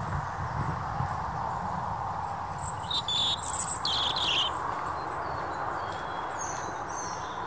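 Small songbirds chirping, with a loud cluster of high calls about three seconds in and fainter chirps later, over a steady background hiss.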